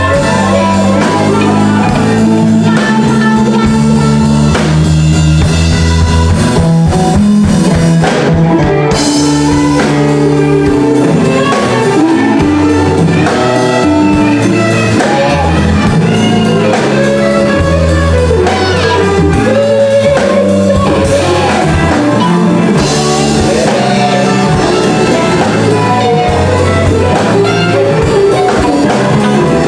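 Live band playing a blues on electric guitar, electric bass and drum kit.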